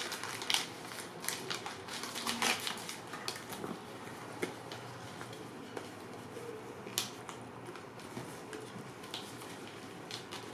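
Hands handling an instant camera and its case: scattered rustles, clicks and light knocks, busier in the first few seconds, then sparse single clicks, with one sharper click about seven seconds in.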